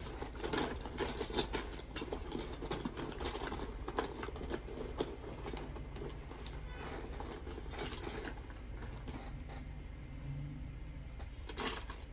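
Irregular small clicks and scrapes of a screwdriver and hands working on a plastic Ricoh drum unit as its cover screws are fitted, thinning out after about seven seconds, over a steady low hum.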